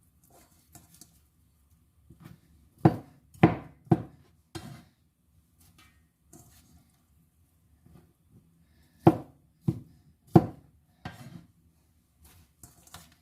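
Knife chopping roasted chicken breast: two runs of four sharp knocks, about two a second, the second run starting about nine seconds in.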